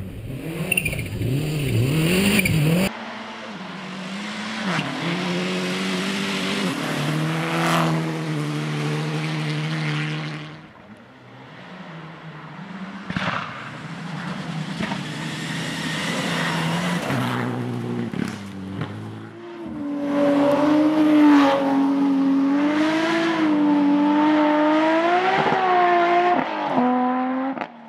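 Rally cars at speed on a special stage, engines revving hard and rising and falling in pitch through gear changes, with some tyre noise. The sound changes abruptly a couple of times as different cars pass.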